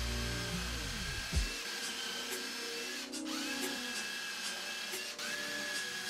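Makita cordless driver's motor whining as it drives screws into plywood, stopping and spinning up again twice, about three and five seconds in, with a few sharp clicks. Background music fades out in the first second and a half.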